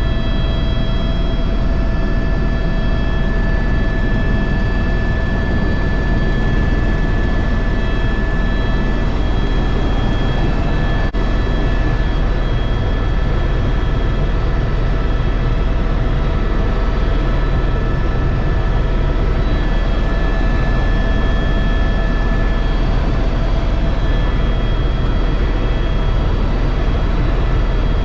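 Tour helicopter in flight, heard from inside the cabin: a steady turbine whine with several held tones over a loud, even low drone.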